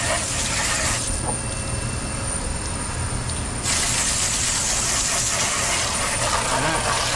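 Water spraying under pressure onto the plastic outer cover panels of a ductless mini-split indoor unit, a steady hiss. About a second in, the hiss turns duller for a couple of seconds, then goes back to full brightness.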